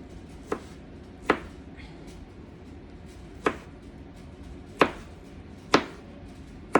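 Kitchen knife chopping on a cutting board: six sharp, separate strokes at an uneven pace.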